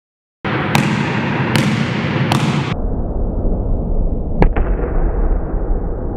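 A basketball bounced over and over on a gym floor in a high left-hand dribble, the thuds echoing in the hall.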